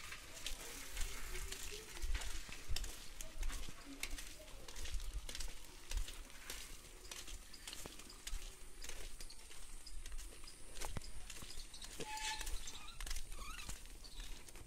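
Footsteps on a dirt lane with rustling, irregular clicks and soft low thumps from a person walking while filming.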